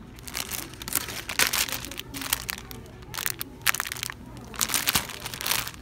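Clear plastic cellophane wrapping crinkling in irregular bursts as a wrapped item is handled.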